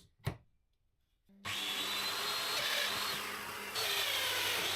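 A sharp knock, then about a second in a Festool Domino joiner's motor starts and runs, its cutter working into wood with a high whine. The noise dips briefly past the middle and then comes back louder.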